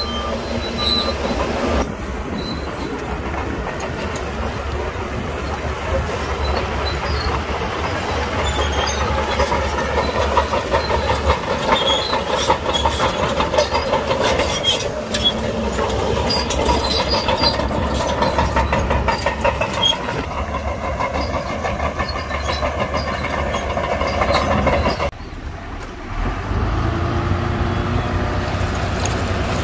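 Shantui DH17C2 crawler bulldozer working, its diesel engine running under a continuous rattling clank of steel tracks as it pushes stone. About 25 seconds in the sound breaks off, and a steadier, lower truck engine drone takes over.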